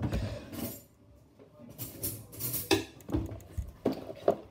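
Scattered knocks, clatters and rustles of a cardboard toy package being handled while it is worked open, with a short quiet gap about a second in.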